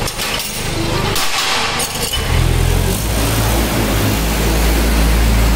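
Low, steady rumble of an engine running, which gets louder about two seconds in.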